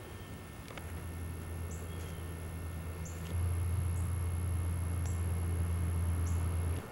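A low steady hum starts about a second in, gets louder a little after three seconds and cuts off sharply just before the end. A small bird's short high chirp repeats about once a second over it.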